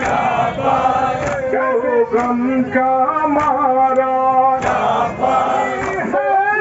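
Men chanting a nauha (Shia mourning lament) together, with rhythmic chest-beating (matam) slaps roughly every three-quarters of a second.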